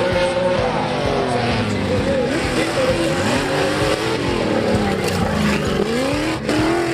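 Competition off-road jeep engines revving hard on an obstacle course, the pitch climbing and dropping again and again as the throttle is worked.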